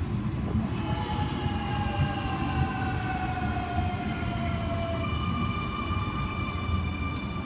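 Electric suburban train moving through the station: a steady low rumble of wheels on track, with a whine of several tones from the traction motors that glides slowly down in pitch from about a second in and then holds higher, steadier notes near the end.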